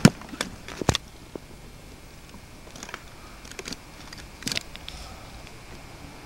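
Camcorder handling noise: a sharp knock right at the start, then a few lighter clicks and taps, one cluster about a second in and another past the middle, as the handheld camera is swung around.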